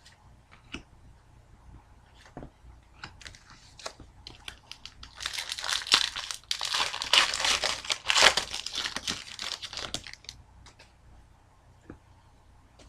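A foil hockey-card pack wrapper being torn open and crinkled, loud and crackly for about five seconds in the middle. Before and after, there are faint light clicks of cards and wrapper being handled.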